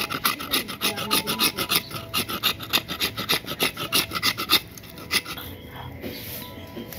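A flat iron blade scraping the fibrous husk off a whole coconut in quick, even strokes, about four a second, stopping about four and a half seconds in. After that, a stone is rubbed more quietly over a stone grinding slab, crushing chili paste.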